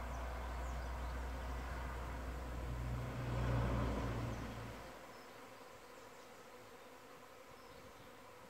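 A cloud of honey bees in the air, buzzing as a steady hum, in what the beekeeper thinks is a virgin queen's mating flight. A passing vehicle's low rumble swells to its loudest about three and a half seconds in and fades out by five seconds, leaving only the bees' hum.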